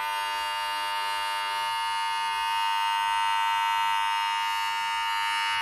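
Wahl 1919 cordless hair clipper running at a steady pitch, its motor (rated 6,900 rpm) humming evenly with many overtones as the blade oscillates.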